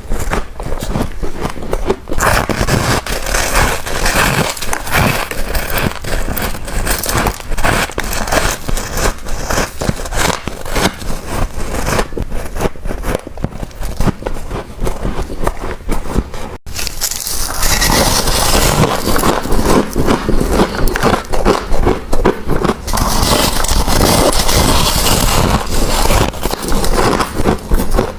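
Close-miked biting and chewing of freezer frost: dense, irregular crunching and crackling. After a sudden break about two-thirds of the way through, the crunching of a refrozen frost block comes louder and harsher.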